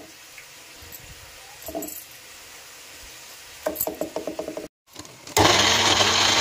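Electric mixer grinder starting up about five seconds in and running steadily at full speed, grinding boiled tomatoes into a purée. Before it, a little light clatter.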